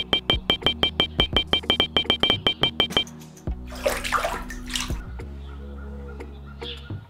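Background music with a fast ticking beat. About three and a half seconds in, a short rush of water is poured into a small model well for about a second and a half.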